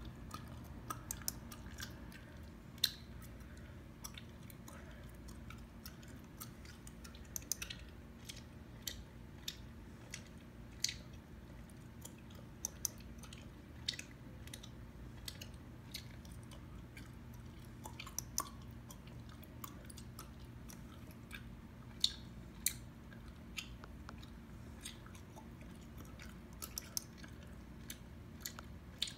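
Chewing gum worked close to the microphone: irregular wet smacks and clicks, about one or two a second, over a faint steady low hum.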